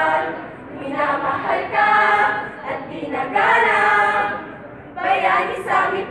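A group of voices singing a Tagalog jingle together in short phrases with brief pauses between them.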